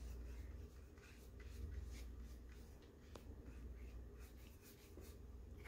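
Faint scratchy strokes of a watercolour paintbrush on paper, with a few light taps, over a low steady rumble.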